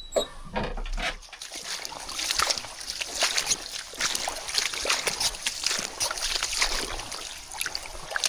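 Water splashing and sloshing: a dense, irregular run of small splashes that starts about a second and a half in.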